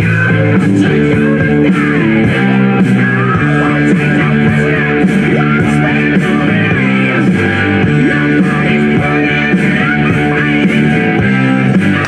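Rock music with guitar, its low notes changing in steps, playing steadily.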